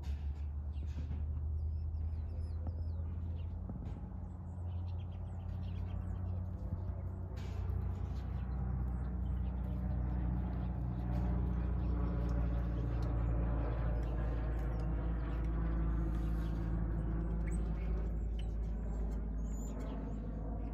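Outdoor ambience: a steady low rumble that swells through the middle, with a few faint bird chirps near the start.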